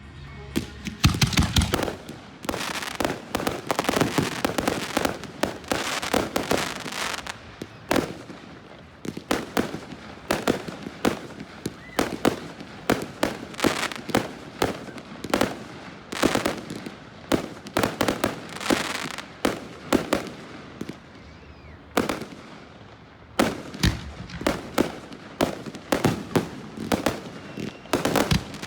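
Fireworks display: a fast, continuous barrage of sharp bangs and crackling shells. It eases a little about two-thirds of the way through, then picks up again.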